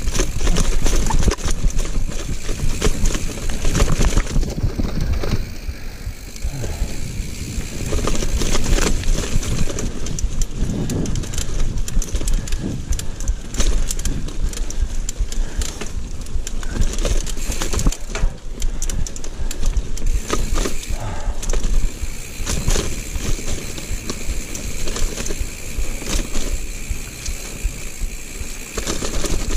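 Giant mountain bike riding over rooty dirt singletrack: tyres rumbling and the bike rattling and knocking irregularly over roots and bumps, with a heavy low rumble throughout.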